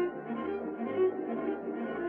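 Orchestral cartoon score, with strings and brass playing a run of short notes.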